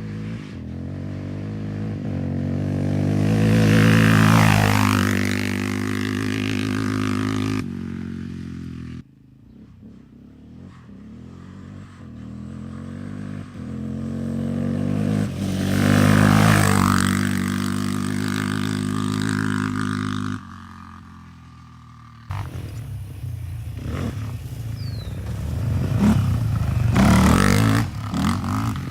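Yamaha Raptor 700 ATV's single-cylinder four-stroke engine through a Barker's dual exhaust, driven past twice: each pass builds to a peak and then fades. Near the end the engine sound turns rougher and uneven, with bursts of revving.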